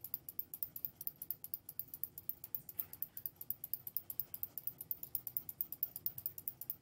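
Faint, rapid, evenly spaced ticking, about seven ticks a second, over a low room hum.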